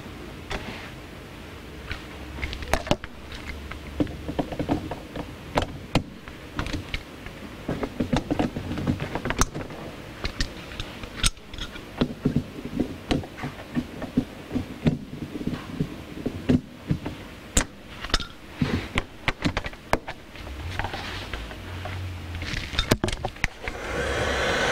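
Irregular clicks and knocks of a screwdriver and metal fittings being worked loose on a hot tub heater's wiring and bonding strip. Near the end a heat gun switches on, a steady rush of air with a rising whine.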